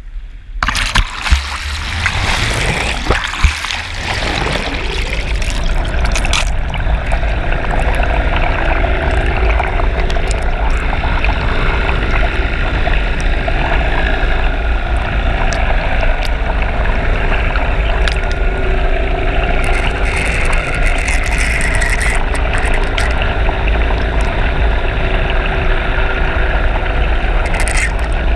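Splashing and churning water as the camera goes into the water beside a moving motorboat in the first few seconds, then the boat's engine and propeller heard underwater as a steady drone with a few steady pitches in it.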